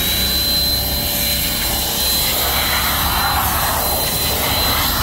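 Handheld electric car-drying blower running flat out, blowing water off the car: a steady high whine over a rush of air that swells and fades around the middle.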